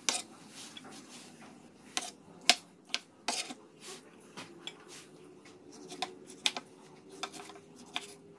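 Kitchen knife chopping boiled banana blossom on a wooden cutting board: irregular sharp knocks and clicks, the loudest about two and a half seconds in.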